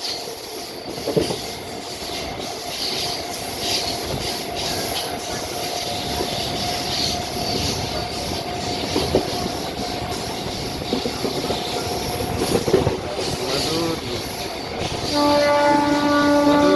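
Indian Railways train running, with the continuous noise and scattered clicks of wheels on the rails and a faint steady tone through most of it. About fifteen seconds in, the train's horn sounds and is held to the end.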